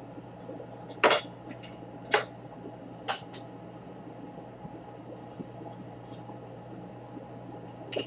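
A few sharp clicks and taps of small hard tools against a hard surface, the loudest two about a second apart near the start, over a steady low hum.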